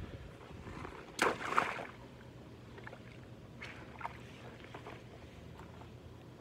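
Rubber boots squelching in wet mud: one loud sucking splash about a second in, then a few softer squelching steps.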